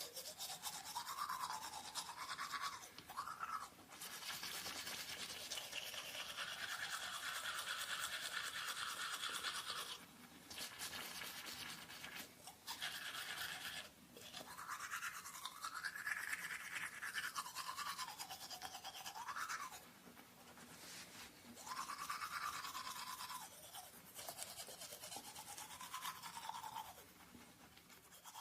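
Teeth being brushed with a toothbrush: a scratchy scrubbing of bristles, with a few short pauses between bouts of strokes.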